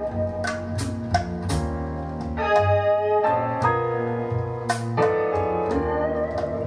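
A recorded song playing over a hi-fi system with a tube preamplifier. It is an instrumental stretch of sustained keyboard chords, with sharp percussion hits every half second or so.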